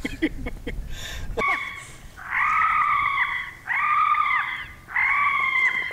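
An animal squealing in a run of four long, high-pitched calls, each held at a steady pitch for about a second; the first is short and faint, the next three loud.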